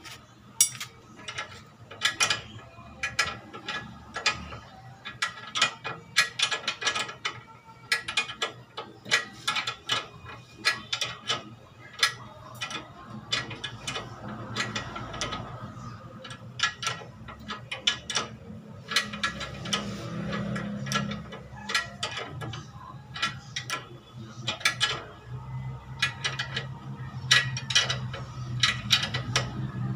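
Hand ratchet wrench clicking in quick runs of strokes as a bolt is turned on a Subaru's front suspension at the lower control arm and ball joint.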